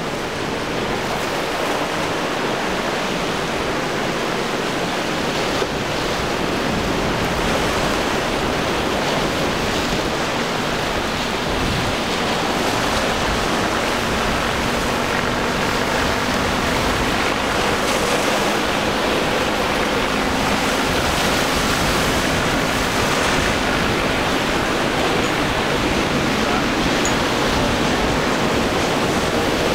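Steady, unbroken rush of wind and breaking surf off a rough, whitecapped sea.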